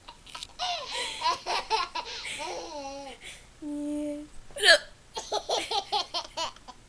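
A toddler laughs in repeated bursts while a woman hiccups, with one sharp, loud hiccup about halfway through and a brief held voice note just before it. The laughter picks up again right after the hiccup.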